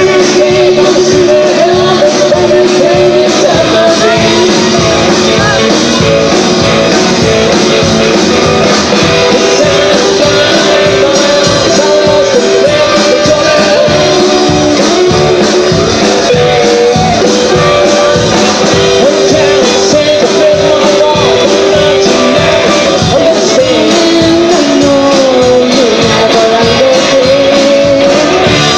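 Live rock-and-roll band playing loud, with a woman singing over acoustic guitar, upright double bass and drums and a steady driving beat.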